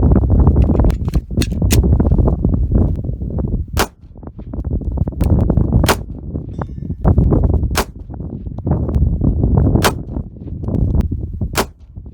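Taurus .44 Magnum revolver firing a string of single shots, about two seconds apart, over a steady rumble of wind on the microphone.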